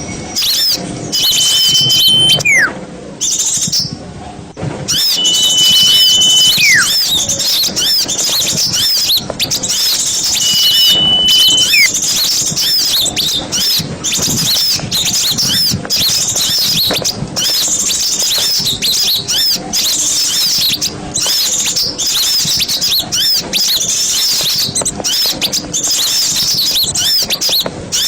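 Bird-lure recording of a crowd of small birds chirping and twittering rapidly all at once. Three long, steady high whistles, each ending in a falling glide, stand out in the first dozen seconds.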